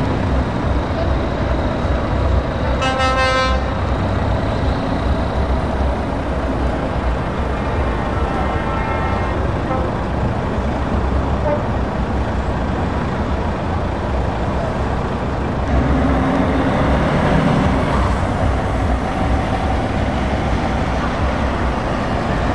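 Heavy lorry tractor units running and pulling away past one after another, with a short truck horn blast about three seconds in and a fainter horn toot around eight to nine seconds. A truck's engine gets louder as it passes, around sixteen to nineteen seconds.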